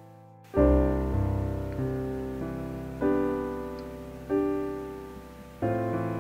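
Background piano music: after a brief silent gap, a piano chord is struck about half a second in, followed by more chords that ring and fade.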